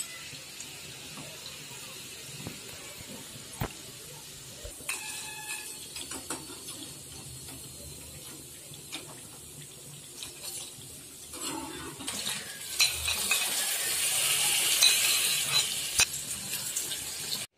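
Hot oil sizzling as wheat-dough chukke ke phool deep-fry in a steel kadai, with a slotted steel spoon clinking and scraping against the pan a few times. Near the end the sizzling grows louder and brighter.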